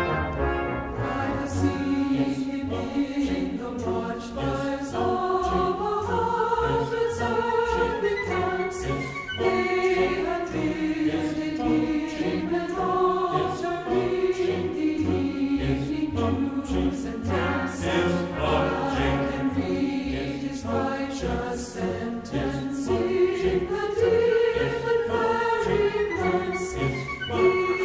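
A choir singing a slow hymn-like piece, long held notes rising and falling.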